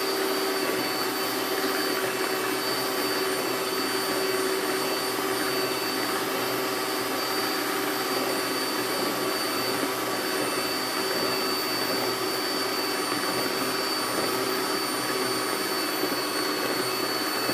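Electric stand mixer running at one steady speed, its beaters whirring through cake batter.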